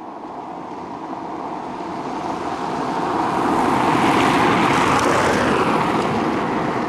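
A Toyota car approaching and driving past on a coarse road surface. Its tyre and engine noise grows steadily louder to a peak about four to five seconds in, then eases off a little as it moves away.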